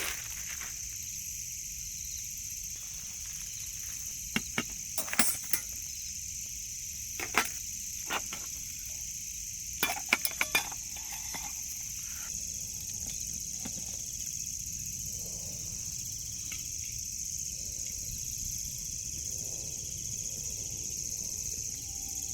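Steady, high-pitched drone of insects, crickets or cicadas, in the forest. Several sharp clicks or snaps cut through it: a cluster about four to five seconds in, one or two around seven to eight seconds, and a quick run of them about ten seconds in.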